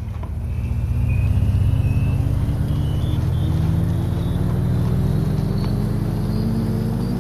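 A motor hum that swells in over the first couple of seconds and then holds, its pitch creeping slowly upward, with a thin high whine climbing along with it.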